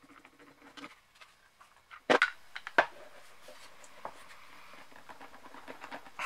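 Hand handling of sander parts as the aluminium impeller-and-rotor assembly of a Festool ETS 150/3 EQ is fitted into its plastic air-intake housing: light rubbing and tapping, with two sharp knocks about two seconds in, less than a second apart.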